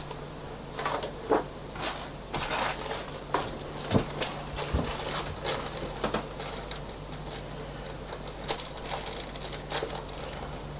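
Small screws and hardware being handled and sorted, giving irregular light clicks and rattles, over a faint steady low hum.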